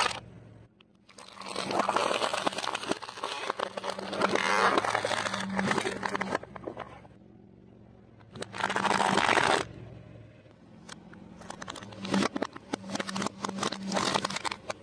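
Car tyre rolling over objects on concrete and crushing them: three bouts of crunching and crackling full of sharp snaps, over a low steady hum.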